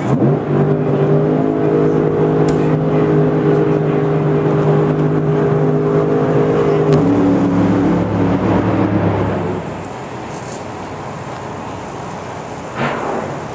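A drag racing car's engine running at a steady speed. About seven seconds in it drops to a lower steady pitch, and it stops near ten seconds, leaving quieter background noise.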